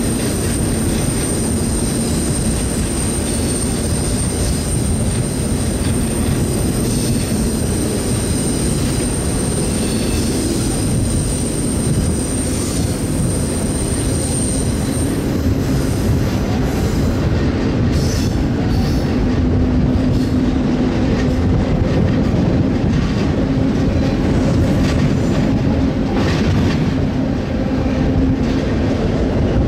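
Container freight train heard from aboard a moving car: a steady rumble of steel wheels rolling on the rails. A thin, high whine sits over it and stops about halfway through.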